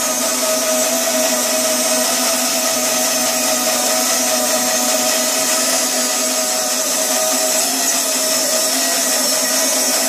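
Electric portable bandsaw mill running, its band blade cutting lengthwise through a weathered wooden beam. The sound is a steady, even hum with a strong hiss of the cut over it.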